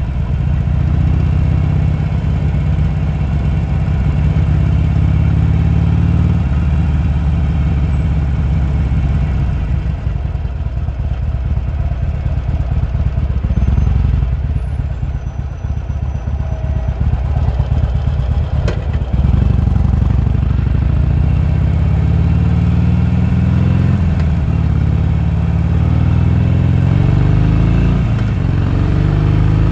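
Harley-Davidson Sportster's V-twin engine running under the rider, steady at first, then twice rising in pitch as it accelerates, with a drop between the rises at a gear change. A single sharp click sounds about two-thirds of the way through.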